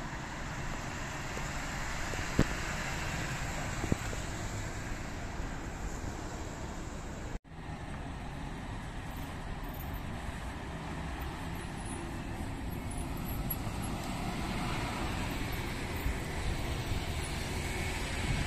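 EMT city buses and street traffic passing through a roundabout: a steady rumble of engines and tyres that swells a little near the end as a bus passes close. Two sharp clicks come in the first four seconds, and the sound cuts out for an instant about seven seconds in.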